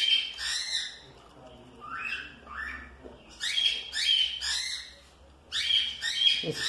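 Pet cockatiel calling: repeated short, high-pitched calls, coming in groups of two or three.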